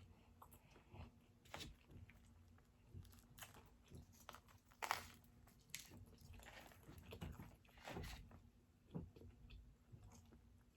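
Faint biting and chewing of food: irregular crunches and mouth clicks, a few louder ones spread through.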